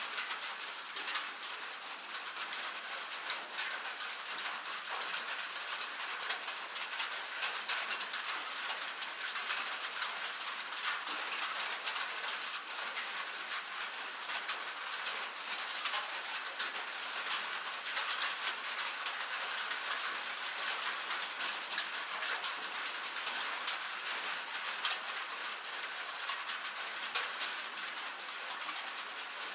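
Steady rain on a metal roof: a dense, even patter of many small drop taps.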